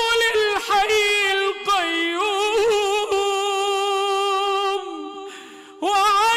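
A single voice reciting the Quran in melodic tajweed style, stretching the phrase 'wa 'anat' into long held notes with a wavering, ornamented pitch. About five seconds in the voice breaks off briefly for a breath, then comes back in.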